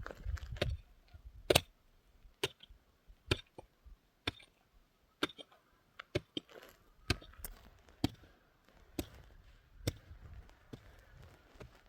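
Repeated sharp knocks of a hand tool striking, about one a second.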